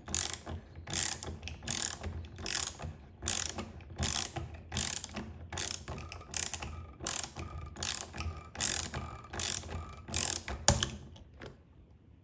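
Socket ratchet clicking in quick back-and-forth strokes, about two a second, loosening the pressure washer's spring-loaded aluminum connector with a 19mm socket. It stops about a second before the end.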